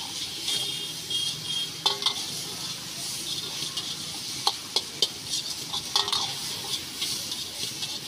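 A metal ladle scrapes and knocks irregularly against a large wok as noodles and Manchurian are stir-fried, over a steady sizzle from the hot pan.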